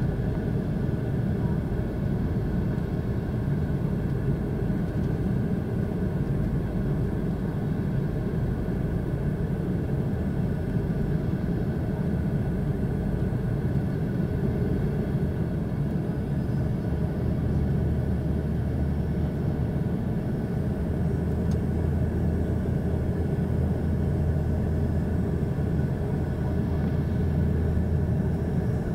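Steady low rumble of a moving vehicle; a deeper steady hum joins a little past halfway.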